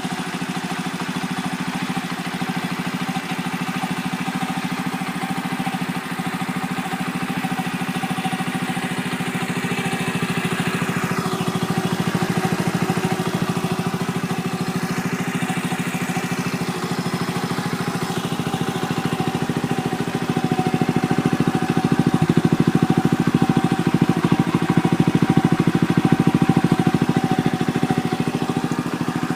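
Honda Little Cub's single-cylinder four-stroke engine idling steadily through a Takegawa Bomber aftermarket muffler, the exhaust note getting somewhat louder about two-thirds of the way through.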